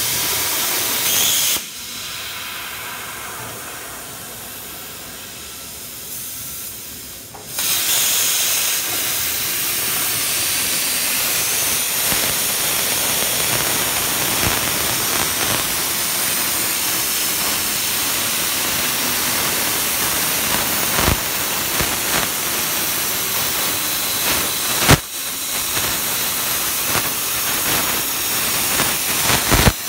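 CNC plasma torch cutting metal: a steady, loud hiss of the arc and cutting air. It drops away about two seconds in and comes back about six seconds later, with a sharp crack about 25 seconds in.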